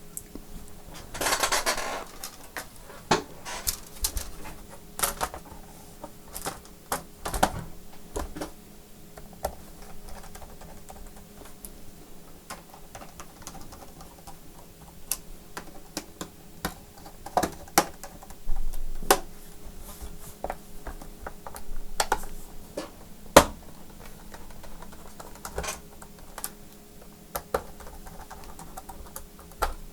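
Irregular clicks, taps and light clatter of hard plastic and small metal parts handled on a repair bench, with a short scraping rustle about a second in.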